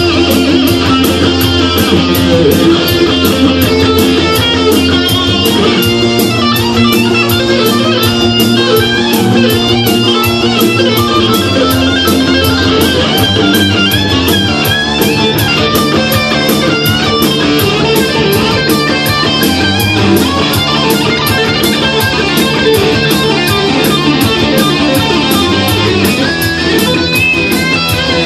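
Electric guitar playing a fast shred lead line over a looped backing of drums, bass and rhythm guitar layered on a Boss RC-3 loop pedal, with a steady beat.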